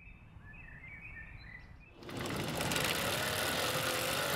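Faint bird chirps, then about two seconds in a much louder steady whir starts abruptly: a road bike's rear wheel spinning on an indoor trainer as the rider pedals.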